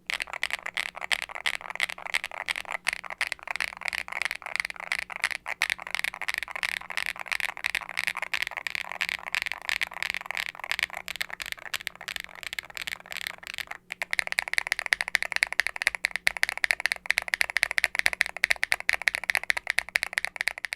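Continuous fast typing on an aluminium Hex80 mechanical keyboard with a carbon fibre plate, foam-dampened, fitted with factory-lubed Owlab Ti HE linear switches (nylon bottom housing, PC top housing, POM stem) under double-shot ABS keycaps. The keystrokes have a deep, clacky sound. They break off briefly about 14 seconds in and resume sounding brighter.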